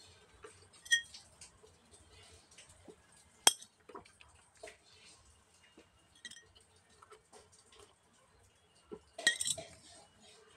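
Clear plastic bakery cake box clicking and crackling as pieces of apple cake are picked out of it by hand, with soft eating sounds in between. A sharp click comes about three and a half seconds in, and the loudest burst of plastic crinkling comes near the end.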